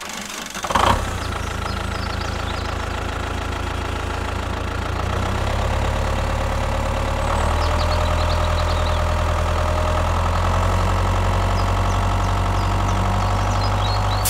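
Tractor engine running at a steady idle, after a loud burst about a second in; it grows louder about five seconds in and again a couple of seconds later.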